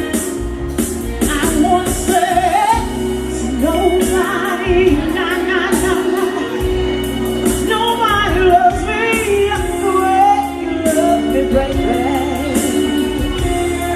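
Live band music with a female singer's voice wavering and bending in pitch without clear words, over bass and repeated cymbal strokes.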